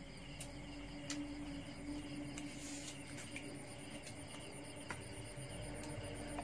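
Crickets and other night insects trilling steadily, with a low steady hum under them. A few small clicks and knocks from a bottle and plastic cup being handled, and a short hiss about halfway through.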